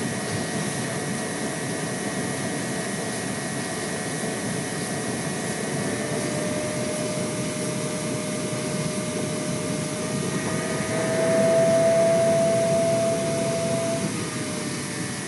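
Compressed air rushing through a venturi aspirator (vacuum generator), a steady hiss. A thin whistle joins faintly about six seconds in, grows louder around eleven seconds, and fades near the end.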